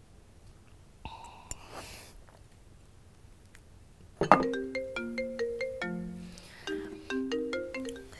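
Mobile phone ringing with a melodic, marimba-like ringtone: a quick repeating tune of short plucked-sounding notes that starts suddenly about four seconds in.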